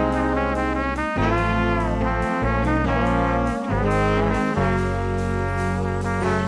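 Background music: a jazzy brass tune over held bass notes that change about once a second.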